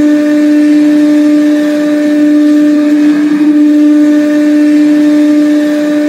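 St. John's IceCaps goal horn: one long horn blast held at a single steady pitch, signalling a goal.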